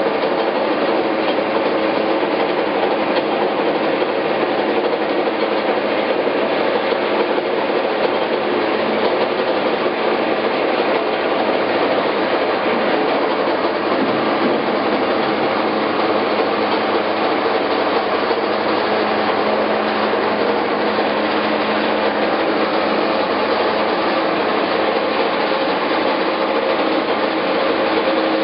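18-inch Marvel Series 8 vertical bandsaw running steadily: a continuous mechanical whir and rattle with a steady hum.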